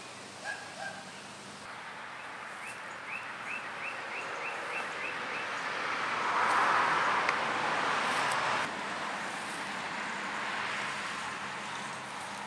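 Outdoor yard ambience: a bird repeats a short chirp about three times a second for a few seconds. Then a rushing noise swells, becomes the loudest sound, and cuts off abruptly.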